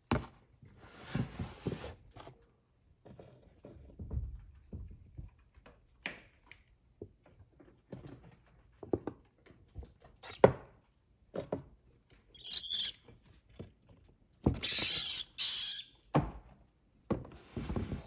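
Clear plastic reptile tub being handled: scattered knocks, clicks and scrapes of plastic, with two louder scraping rustles near the end.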